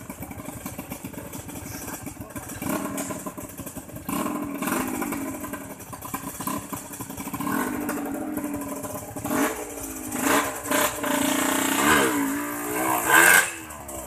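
An engine running steadily, then revved several times in the second half, its pitch rising and falling with each rev, loudest near the end.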